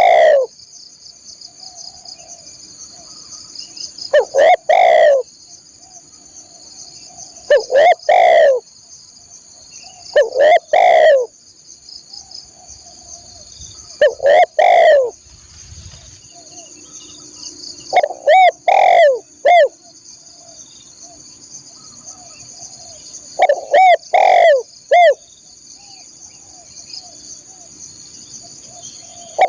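Spotted dove (tekukur) cooing loudly, a phrase of curved, hooting coos about every three to five seconds, the later phrases running to two or three notes. A steady high insect drone runs beneath.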